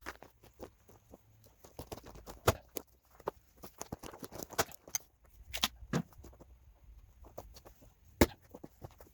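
Firewood being split: sharp knocks and cracks of wood, with the four loudest strikes a few seconds apart and lighter clatter of pieces being handled between them.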